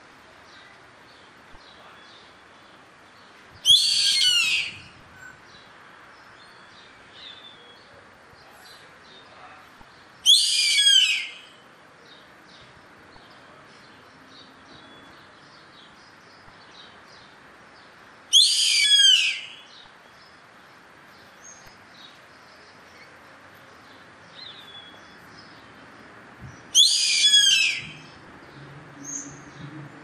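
Yellow-headed caracara calling: four high calls, each about a second long, spaced about seven to eight seconds apart, over a faint steady background.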